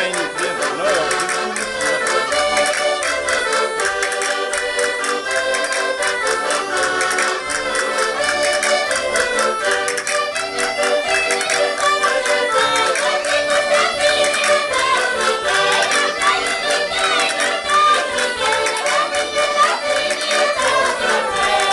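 Accordion playing a traditional Portuguese folk tune with a steady rhythmic beat.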